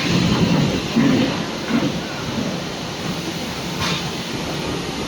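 Steady din of machinery on a refrigerator production line, a dense hiss and rumble, with one sharp click about four seconds in.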